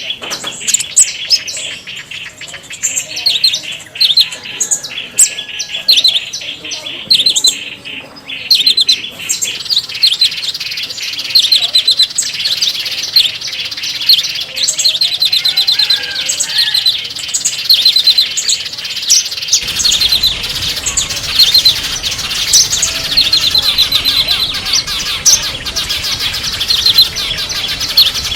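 Small songbirds chirping rapidly and continuously, many short high chirps overlapping. About twenty seconds in, the recording changes and a low background hiss comes in under the chirping.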